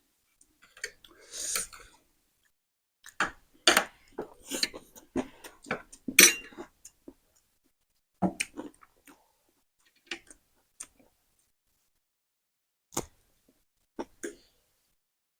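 Close-up eating sounds: noodles being slurped and chewed, with utensils clinking against a plate or bowl in short, irregular bursts, busiest in the first half.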